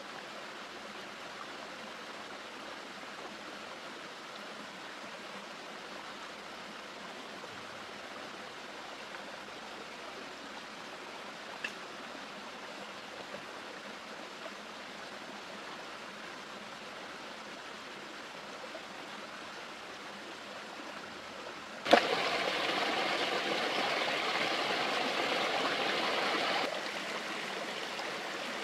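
Steady rush of running water, like a mountain stream. About two-thirds of the way in, a sharp knock is followed by a louder rushing for about five seconds, which then stops abruptly.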